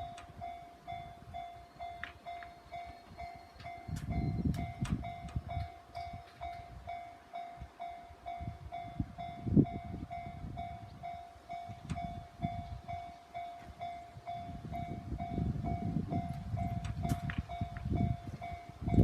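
Japanese railway level-crossing alarm ringing steadily in an even, quick repeated tone while a train passes, its low rumbling clatter rising and falling and growing stronger toward the end.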